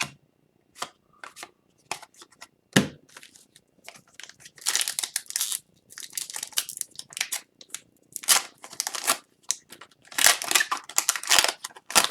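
Upper Deck hockey trading cards being handled and flipped through by hand. There are a few light clicks at first, then several bursts of papery rustling and sliding as the cards are moved.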